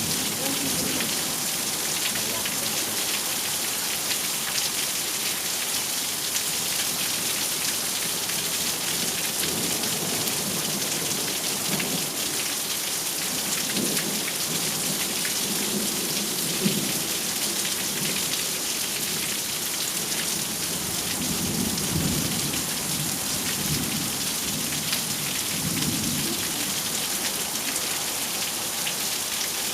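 Heavy thunderstorm rain falling steadily, with low rolls of thunder rumbling on and off through the middle and near the end.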